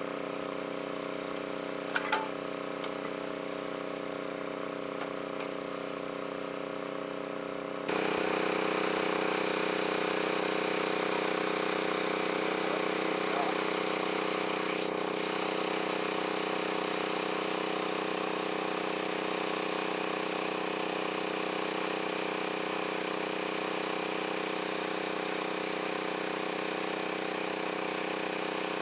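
A steady machine-like hum with a constant pitch, stepping up in loudness about eight seconds in.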